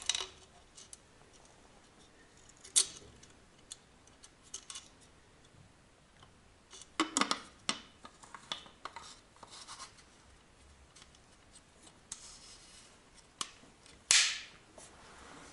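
Plastic fuel-tank cap of a Husqvarna 555 chainsaw being turned and screwed onto the tank, a few short scrapes and clicks with quiet gaps between. The cap turns stiffly.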